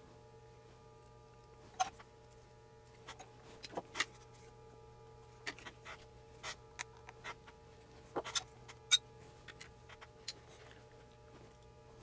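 Irregular light clicks and taps of a kit circuit board being handled in a board holder while through-hole resistors are fitted, over a faint steady hum. The sharpest click comes about nine seconds in.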